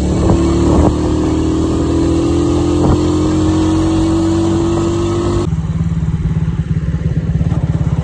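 Motorcycle engine running under way, with a strong steady tone that rises slowly in pitch. About five and a half seconds in, the sound cuts abruptly to a slower, evenly pulsing engine beat.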